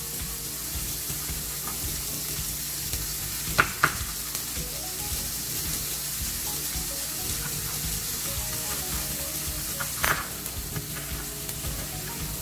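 Sliced red onion and garlic sizzling steadily in olive oil in a hot frying pan as they soften. Two sharp knocks of a knife on a wooden cutting board come about three and a half seconds in, and one more near ten seconds.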